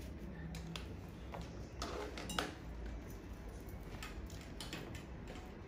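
Light, irregular clicks and clinks of small hard objects being handled, the sharpest about two and a half seconds in, over a low room hum.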